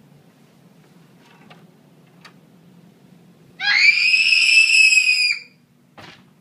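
A child's single high-pitched scream of fright, rising sharply at its start and then held for nearly two seconds. A short knock follows shortly after.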